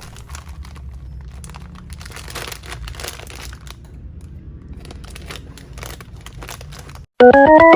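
Irregular crinkling and rustling, like handled paper or plastic, over a low steady hum. Keyboard music comes in near the end.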